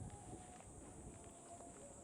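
Faint outdoor background: a steady high-pitched hiss with a few faint scattered ticks and knocks.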